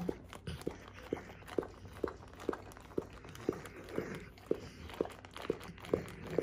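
American Pit Bull Terrier licking peanut butter off a plastic-covered canvas, one tongue stroke after another in a steady rhythm of about two licks a second.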